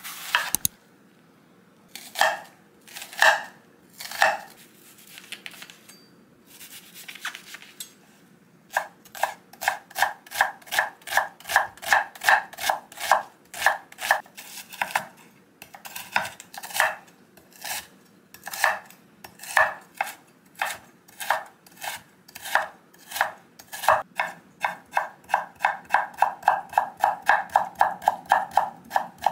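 Chef's knife on a wooden cutting board: a few slow cuts through a whole onion, then steady rapid dicing at about four knocks a second from about a third of the way in.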